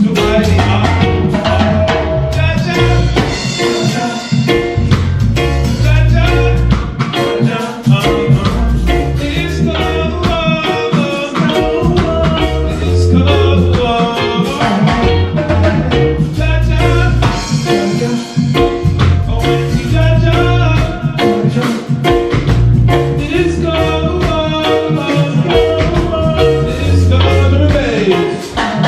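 Live roots reggae band playing, with a heavy, pulsing bass line under a drum kit and melodic instruments.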